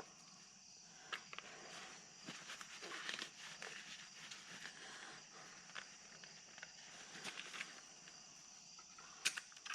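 Faint scraping and light clicks as a container of pipe joint compound that has separated is worked and stirred, with one sharper click near the end, over a steady high hiss.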